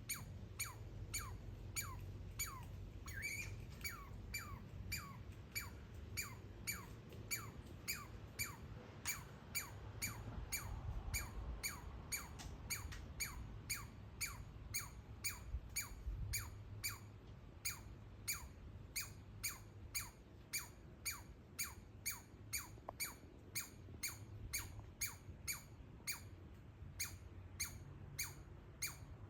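Baby squirrel calling over and over with short, sharply falling chirps like laser noises, about two a second, with no break.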